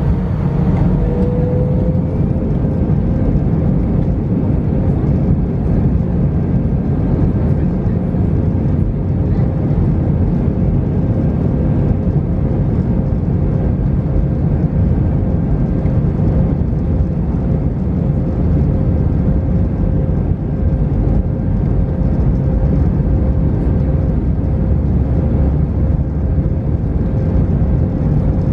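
Airbus A321 engines and airframe heard from inside the cabin while taxiing: a steady low rumble with a thin tone that rises slightly about a second in and then holds.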